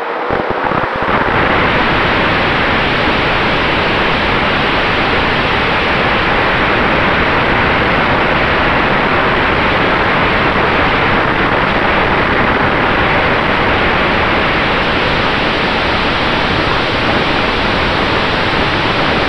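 Steady loud rush of wind over the onboard camera beneath a flying E-flite A-10 Thunderbolt II RC jet, mixed with the running of its 64 mm electric ducted fans, with a faint steady tone under the rush.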